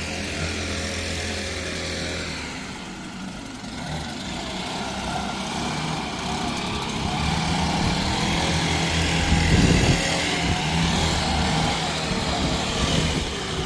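An engine running steadily, its hum shifting in pitch a couple of times.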